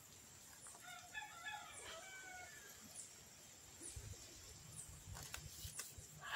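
A rooster crowing once, faintly, for about two seconds, starting about a second in. A steady high-pitched whine with faint chirps about once a second runs beneath, and a low rumble comes in past the middle.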